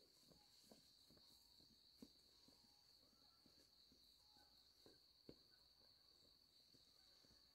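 Near silence with a faint, steady, high-pitched insect drone, and a few faint scattered ticks.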